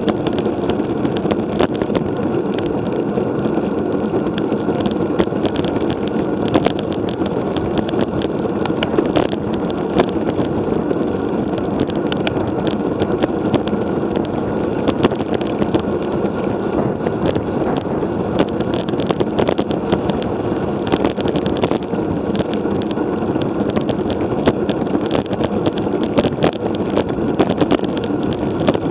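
Steady wind and road noise from a road bicycle being ridden, with many small sharp clicks and rattles scattered throughout.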